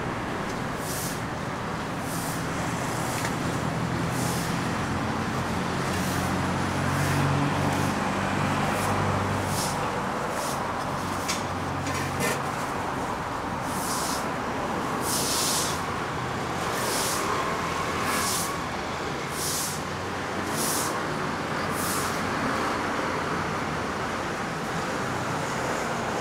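Steady street traffic noise, with a vehicle engine running low and loudest in the first half, and a run of short hisses about a second or so apart through most of it.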